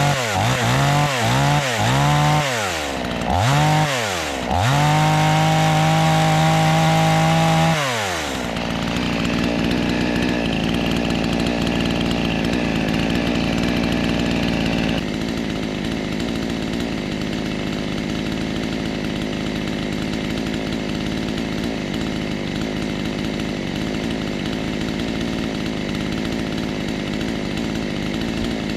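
New chainsaw's engine revved in several quick throttle blips, then held high for a few seconds. About eight seconds in it drops back and runs steadily at idle.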